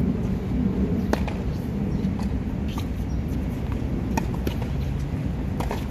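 Tennis ball being hit back and forth in a practice rally on a hard court: several sharp racket strikes and bounces a second or two apart, over a steady low background rumble.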